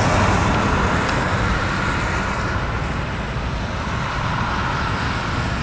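Steady traffic noise from vehicles passing on a nearby highway: a continuous rushing roar with a low rumble.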